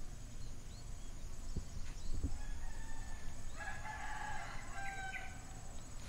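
A rooster crowing once, a call of about a second and a half starting a little past the middle, over a steady high whine and low rumble.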